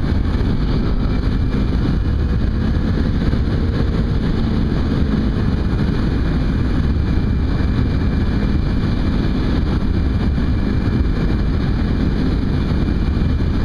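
Kawasaki Ninja 250 motorcycle riding at road speed: its engine drones steadily under a constant rush of wind over the microphone.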